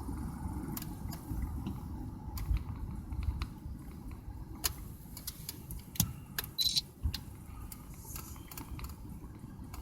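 Car moving at low speed, heard from inside the cabin: a steady low rumble of engine and road noise, with scattered small clicks and rattles on top.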